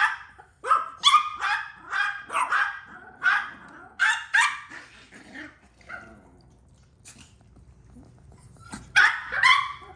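A Yorkshire terrier barking in a rapid run of short, high yaps, falling quiet a little past halfway, then two more barks near the end.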